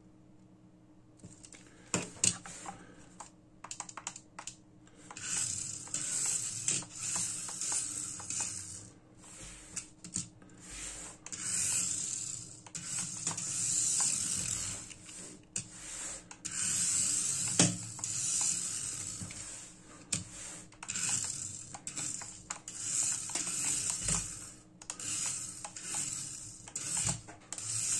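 Tiny electric drive motor of an Amewi 1:67 mini RC rally car whirring high-pitched in repeated spurts of a few seconds as it is driven in short runs, with scattered sharp clicks.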